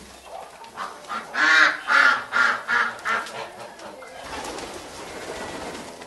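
White domestic geese honking: a quick run of about five loud honks, starting a little over a second in, followed by a quieter stretch.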